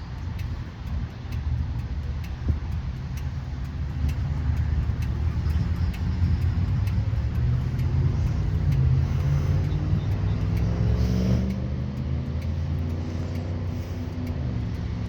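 A large engine running with a low, steady drone. Its pitch climbs for a few seconds and then drops off suddenly about eleven seconds in.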